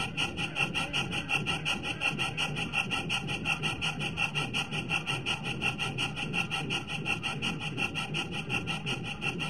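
Model steam locomotive's chuffing sound, a fast, even beat of chuffs, over the low, steady rumble of the train running on the track.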